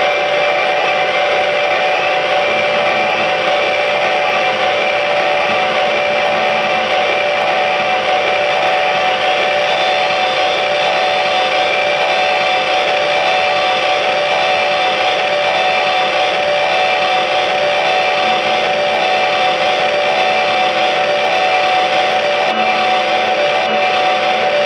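Amplified electric guitar and keyboard synthesizer playing a loud, steady wall of noise with a few held drone tones and no beat.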